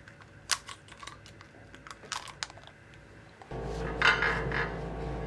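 A few light clicks and taps, then from about three and a half seconds in a knife sawing through a muffin on a plate: a short rasping scrape over a low steady hum.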